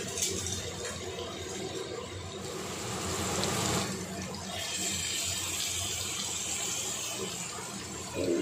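Butter and oil sizzling in a hot pan as marinated chicken leg pieces fry. The sizzle swells about three seconds in as the chicken goes into the fat, then carries on as a steady frying hiss.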